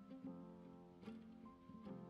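Quiet background music: sustained tones with a new note struck near the start, about a second in, and near the end.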